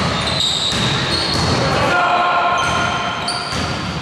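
Basketball game play in a large sports hall: the ball bouncing, sneakers squeaking on the court and players' voices, all echoing in the hall.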